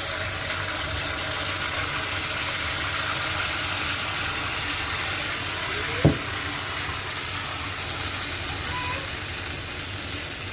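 Unniyappam batter balls deep-frying in hot oil in the wells of an unniyappam pan, sizzling steadily. A single short knock about six seconds in is the loudest sound.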